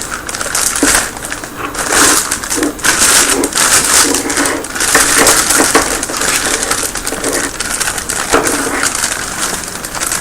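Packaging being handled as a keyboard is unpacked: steady crinkling and rustling with many small irregular crackles throughout.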